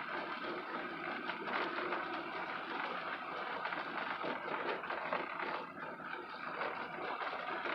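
Chevy Aveo rolling along a gravel logging road: steady tyre and road noise, with a constant patter of small crunches and pops from the stones under the tyres.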